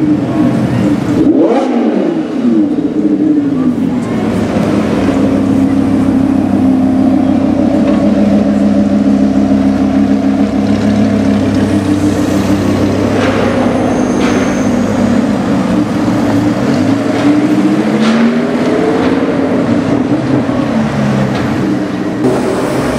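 Lamborghini Huracan LP610's naturally aspirated V10 running through a loud aftermarket Fi exhaust: the pitch drops away just after the start, holds fairly steady for a long stretch, then rises and falls again near the end, with a few short sharp cracks in between.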